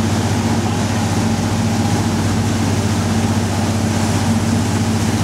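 Sportfishing boat's engines running with a steady low drone, under the rush of churning water and wind around the stern.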